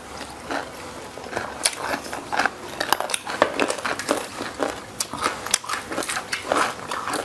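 Crunching and chewing of crispy battered deep-fried red tilapia, with irregular sharp crackles as the fried crust breaks.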